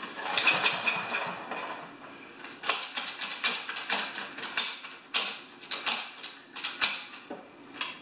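Kohler engine on a Lawn-Boy mower being pull-started on its sticky recoil rope and cranking without catching. There is a long pull first, then a run of short sharp strokes about two a second. It won't fire, which is typical of an engine either choked off or not getting fuel.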